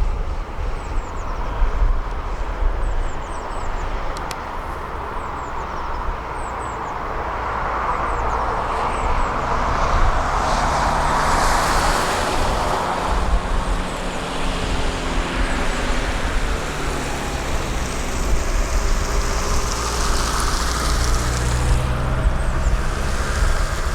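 Diesel engine of a heavy excavator working, a steady deep rumble with a broad swell of noise about halfway through; over the second half the engine tone rises and falls in pitch as it is worked under load.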